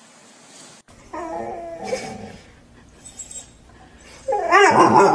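A dog whining in high, wavering cries: a short one about a second in, then a louder, longer one from about four seconds in.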